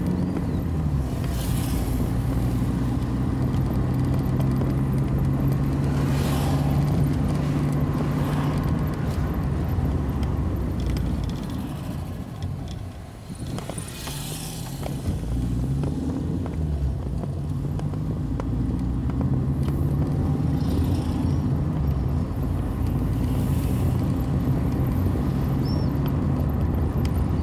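Car engine and road noise while driving. The engine note drops away about halfway through, then climbs again in steps. A few brief whooshes of noise come and go.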